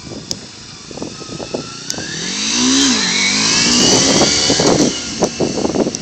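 Kawasaki Ninja 250R's 250cc inline twin on its stock exhaust, revving hard as the bike launches in a brief front-wheel lift. The engine note climbs for about a second, drops just before the three-second mark, and then runs loud as the bike accelerates away.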